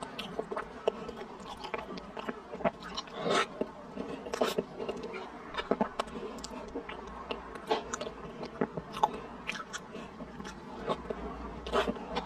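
Close-miked wet chewing and lip smacking of soft taro paste, cream and mochi, with many irregular sharp mouth clicks.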